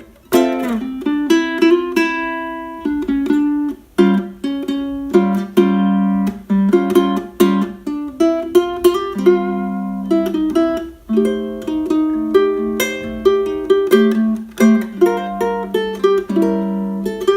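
Snail SR-05T tenor ukulele in low G tuning with a D'Addario low G string, fingerpicked: a continuous melody of single plucked notes and note patterns, with the low G bass notes ringing under the higher strings.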